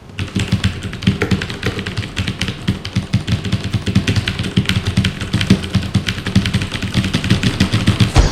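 Rapid, continuous typing on a mechanical keyboard: a dense run of sharp key clicks that stops abruptly near the end.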